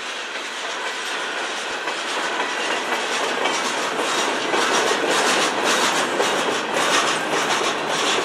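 Freight cars of a CN manifest train rolling past, a steady rumble and rush of steel wheels on rail, with wheel clacks that grow sharper about halfway through.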